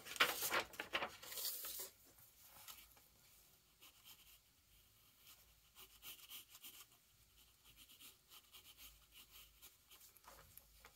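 Graphite pencil strokes scratching across paper, louder for about the first two seconds, then faint light sketching strokes.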